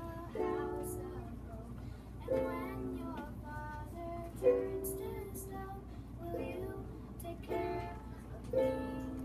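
Ukulele strummed in slow chords, a new strum every one to two seconds, each left to ring.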